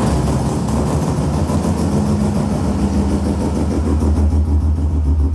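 Bridgeported 13B rotary engine, carburetted, running at idle with a steady, low, pulsing note.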